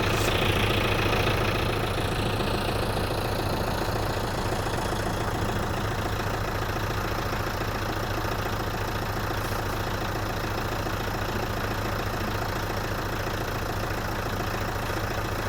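Farm tractor engine running at a steady speed, with a strong constant low hum.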